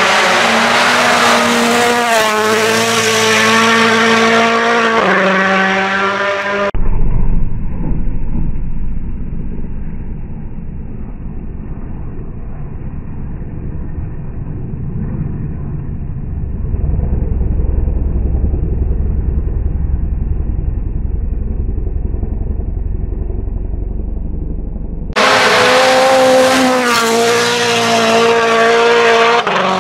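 Rally cars' turbocharged four-cylinder engines at full throttle on snow stages, the engine note stepping in pitch with gear changes as each car approaches and passes. A long stretch in the middle is a dull, muffled rumble with no clear engine note.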